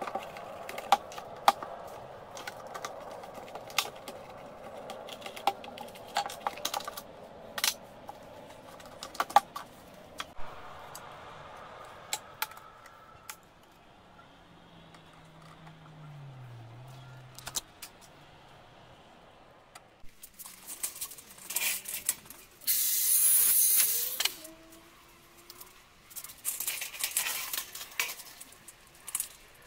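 Sharp clicks and knocks of small hard plastic and metal parts being handled and fitted together, then two louder bursts of hissing, scraping noise in the second half.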